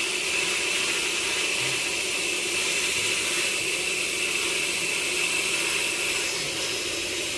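Sawmill machinery running steadily, a continuous mechanical noise with a steady high whine.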